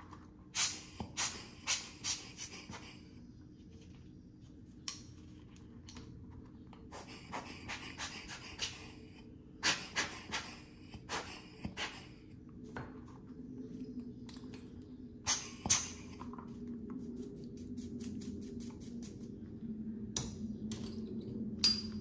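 Small parts of a disassembled Timemore Chestnut C3 ESP hand coffee grinder clicking and tapping as they are handled and set down, in scattered runs of sharp clicks.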